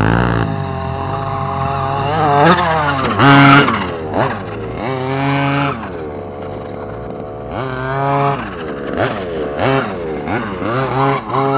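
Small two-stroke gas engine of a Redcat Rampage MT V3 1/5-scale RC monster truck, revved up and let off again and again as it is driven over dirt. The loudest burst of revs comes about three seconds in.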